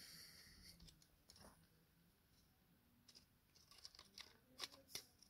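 Near silence with faint handling noise from the opened camera body being turned in the hands: a light rustle in the first second, then a few soft clicks and taps of plastic and metal parts near the end.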